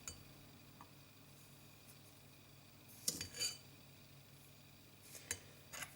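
Sugar being added to a small jar of chopped onion: a few light clinks against the jar, a cluster about three seconds in and two more near the end, over a faint steady room hum.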